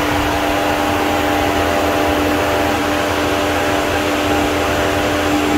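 Electric radiator cooling fan being test-run after fitting: a strong, steady motor hum with rushing air.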